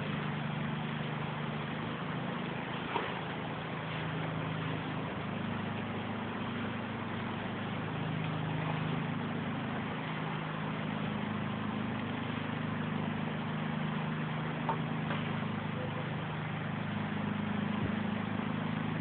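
Heavy torrential rain falling steadily, an even hiss, with a low steady drone underneath and a couple of faint ticks.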